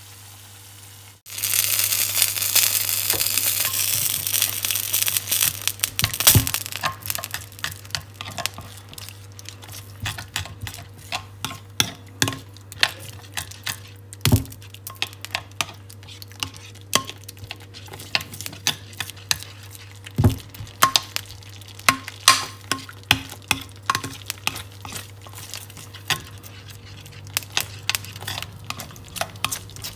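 Water poured into a glass roasting dish of pan drippings and flour gives a loud hissing rush for about five seconds, starting about a second in. Then a metal spoon stirs the gravy, clinking and scraping against the glass dish in irregular sharp clicks.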